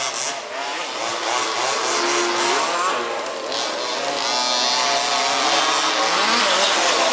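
Several 1/5th scale 2WD RC buggies' small two-stroke petrol engines racing, each rising and falling in pitch as they rev up and ease off around the track, the tones overlapping.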